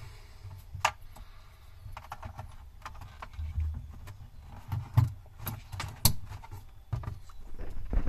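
Scattered sharp clicks and rubbing of small plastic parts as the white wire connector of a replacement 12-volt fridge fan is handled and pushed together, over a low rumble. The loudest clicks come a little past the middle.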